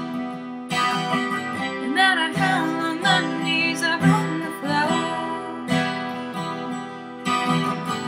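A woman singing a slow pop ballad over a strummed acoustic guitar.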